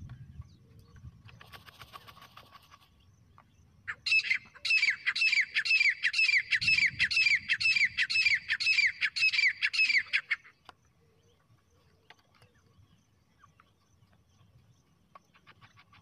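Francolin (teetar) calling: a rapid run of loud, short, downward-sliding notes, two to three a second, starting about four seconds in and stopping about six seconds later.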